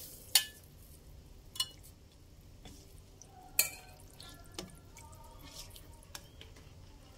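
Metal spoon stirring through broth in a stainless steel wok, clinking sharply against the pan a few times.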